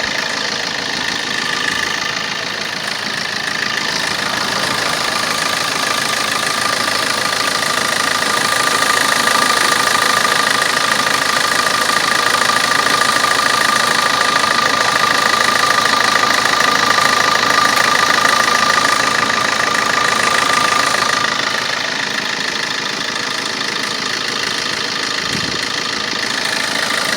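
Vauxhall Corsa D 1.3 CDTi four-cylinder turbo diesel engine running at idle with a rapid weird clicking, with a steady whine over it that weakens near the end.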